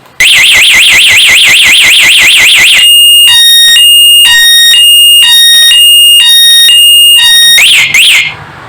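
HJG motorcycle anti-theft alarm's siren speaker sounding, very loud. It gives a fast warbling wail for a few seconds, then a hi-lo two-tone pattern switching a little over twice a second, then two slower up-and-down sweeps before cutting off near the end.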